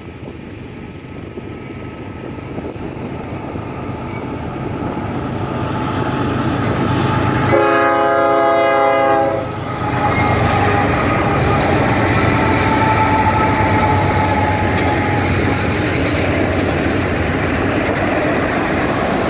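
Diesel freight locomotives approach, the rumble growing steadily louder, and sound one horn blast of about two seconds partway through. The locomotives then pass close by, and a long string of freight cars follows, its wheels rolling loudly on the rails.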